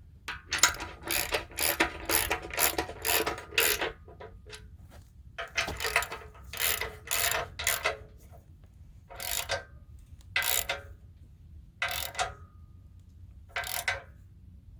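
Socket ratchet wrench clicking in quick back-and-forth strokes as the tray's bolts are run in. There is a long run of clicks at first, then several shorter bursts with pauses between.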